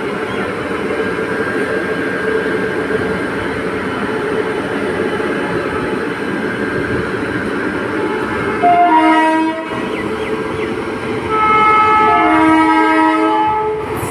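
Indian Railways electric locomotive hauling a moving train with steady running noise, then sounding its multi-tone horn twice: a short blast about two-thirds of the way in, and a longer one near the end.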